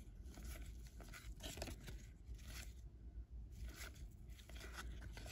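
Baseball cards flipped through one at a time by a gloved hand: faint paper-card slides and soft flicks, a few seconds apart.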